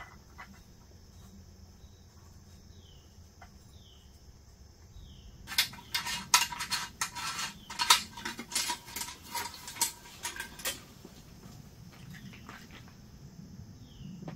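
A rapid run of sharp metal clicks and clinks lasting about five seconds, starting about five seconds in, as a metal fuel flask is handled, pulled from its pouch and its cap worked open. Before it, a few faint short falling chirps.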